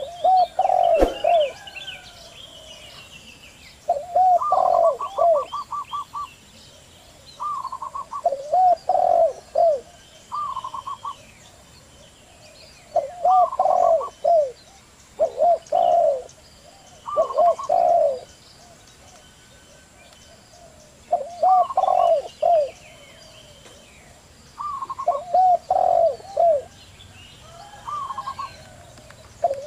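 Zebra doves and spotted doves cooing in repeated phrases every few seconds, each a quick stutter of high notes followed by a few lower, rounded coos, with faint small-bird chirping behind.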